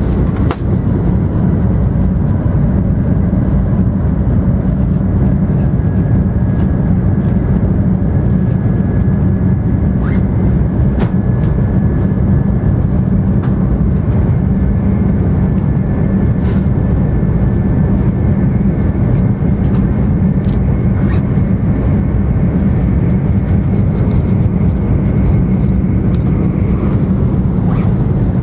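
Cabin noise inside an N700-series Shinkansen running at speed: a steady low rumble, with a faint high steady tone above it and a few light ticks.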